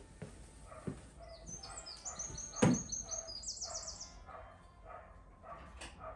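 A dog barking over and over, about two barks a second, while a bird sings a quick run of high chirps in the middle. A single sharp knock, the loudest sound, comes about two and a half seconds in.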